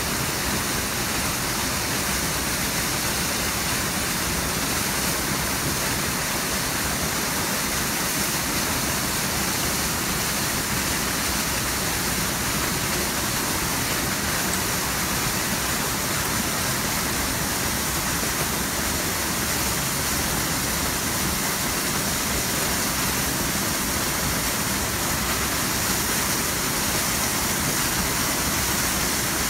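Rifle Falls, a waterfall whose several streams pour over a cliff into pools below, making a steady, unbroken rush of falling water.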